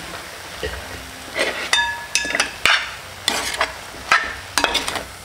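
A metal spoon stirring thick avial (vegetables in ground coconut and curd) in a steel pot, scraping through the mixture and clinking against the pot, with several sharp knocks, a couple of which ring briefly about two seconds in.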